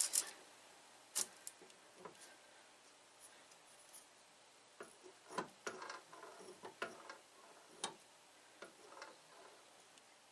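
Scattered light clicks and taps of metal and wood parts being handled as an air gun barrel is shimmied into place in a clamp under a drill press chuck, with the press not running.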